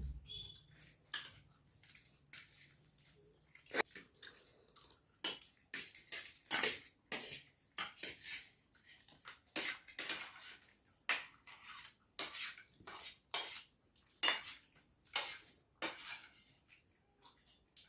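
Cutlery clinking and scraping against a plate in quick, irregular strokes as pasta is eaten.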